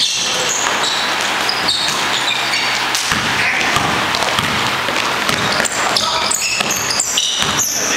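Basketball being dribbled on a gym floor, repeated bounces amid players running, with short high sneaker squeaks on the court.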